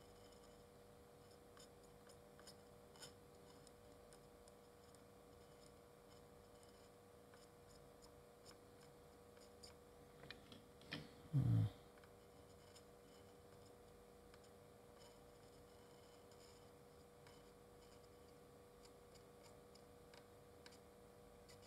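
Near silence: room tone with a faint steady hum and a few faint ticks, broken about halfway by a couple of clicks and one short low thump.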